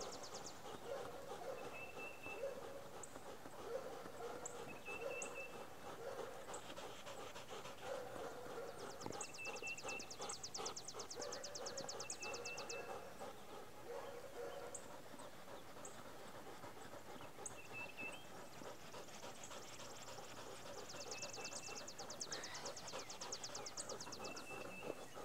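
Dog panting and whining softly. A fast, high ticking trill comes and goes, and a short high chirp repeats every few seconds.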